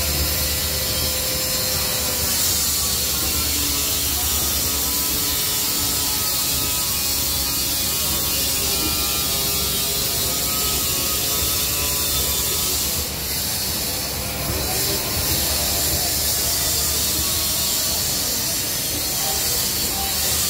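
Garib Rath Express passenger coaches rolling slowly into the platform on arrival, with a steady rumble from the wheels. Shifting metallic squealing and scraping from the running gear swells and fades, once a couple of seconds in and again in the second half.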